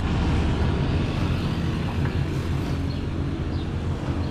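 Pickup truck engine running at low speed, a steady low rumble, with a few faint high chirps over it.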